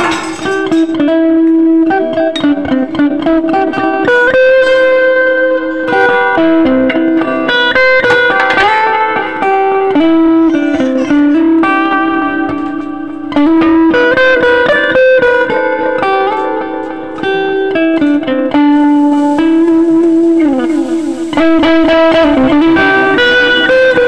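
Instrumental background music on plucked guitar: a melody of changing notes over a steady low note.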